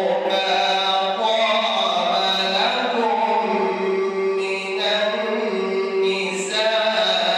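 Quran recitation by a single male reciter, chanted melodically through a microphone in long drawn-out notes with a few short breaks.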